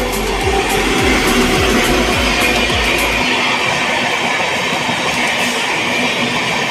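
Express train with red LHB-type coaches passing at speed close by: a steady loud rush of wheels on rail with scattered clicks. Background music plays over it, its deep beat stopping about three seconds in.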